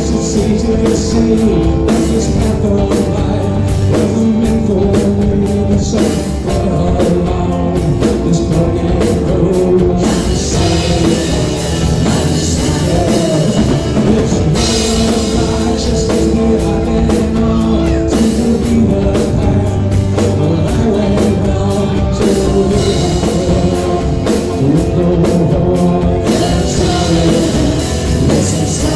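Live rock band playing, drum kit driving the beat under guitar, with singing.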